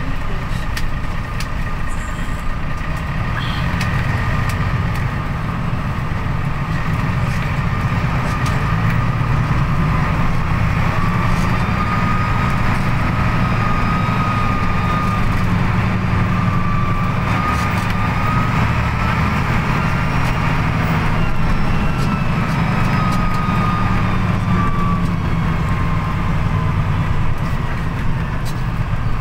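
Bus engine running steadily at low speed in slow town traffic, heard from inside the bus cabin as a deep drone. A thin whine wavers up and down in pitch through the middle.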